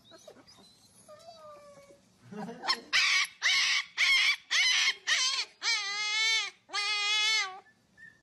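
Husky puppy yapping and howling: a faint whine, then a run of short yaps about two a second, ending in two longer howls that rise and fall in pitch.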